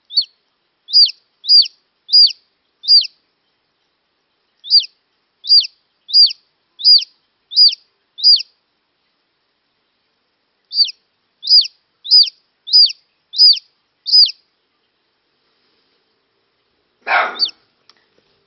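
Newly hatched chick peeping: short high peeps that each flick up and then drop in pitch, in three runs of five or six at about one and a half a second. A brief rustling noise near the end.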